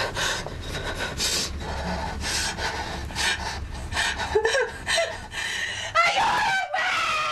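A woman panting and gasping in fear, short ragged breaths about two a second. From about four seconds in the breaths break into whimpers, and near the end a long wavering cry falls in pitch.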